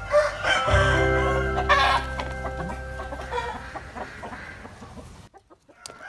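Domestic poultry clucking over background music, with the sound dropping out almost completely for a moment near the end.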